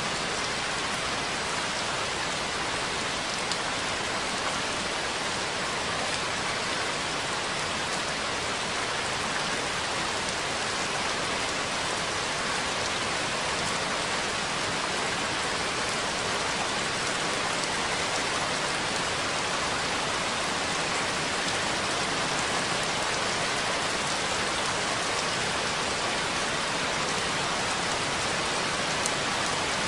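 Steady rain falling, an even hiss of many drops with no let-up.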